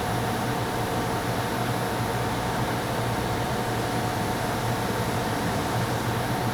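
Steady mechanical drone: a low hum with a hiss over it and a few faint steady tones, with no change in level.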